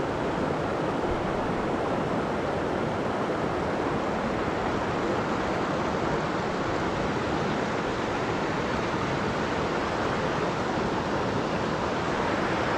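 Mountain stream water rushing steadily, an even noise that holds at one level throughout.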